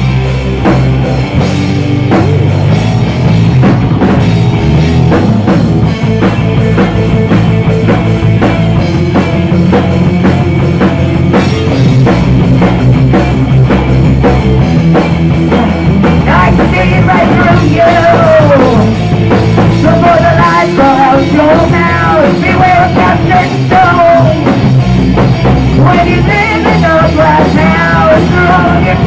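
Rock band playing live, with drum kit and amplified instruments. A singer's voice comes in about halfway through.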